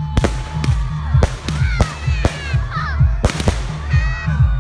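Aerial fireworks launching and bursting in an irregular series of about nine sharp bangs, some close together.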